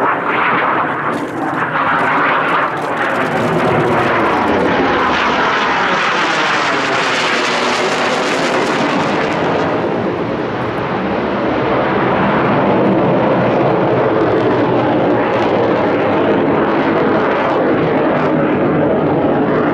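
Yakovlev Yak-130 jet trainer's twin AI-222-25 turbofans during a flying display: a continuous loud jet noise with a sweeping, phasing tone as the aircraft moves overhead. The hiss grows brightest about eight seconds in, then settles to a steady rush.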